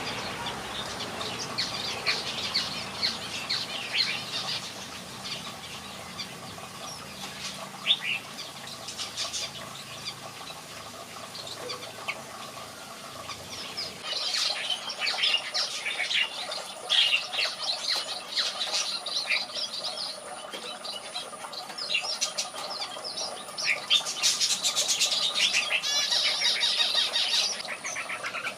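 Red-whiskered bulbuls calling and singing: a string of short chirps and whistled phrases, busier and louder in the second half.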